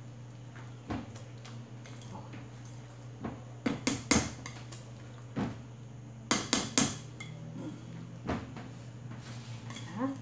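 Wire whisk stirring thick sweet potato cake batter in a clear mixing bowl, knocking and scraping against the bowl in a series of sharp clicks, the loudest bunched around four and seven seconds in.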